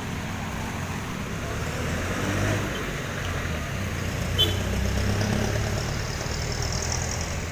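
Street traffic at a jeepney terminal: vehicle engines running and passing with a steady hum and road noise, swelling a little in the middle. A single short sharp clank about four and a half seconds in.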